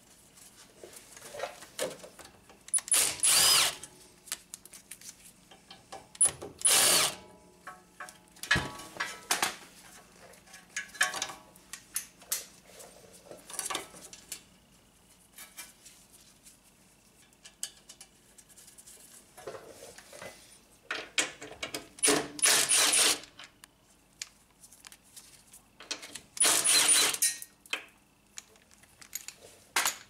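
Handheld power tool spinning small bolts back into their holes on the steering knuckle, in short runs of about a second, four of them loud. Light clicks and clinks of the bolts and tool come in between.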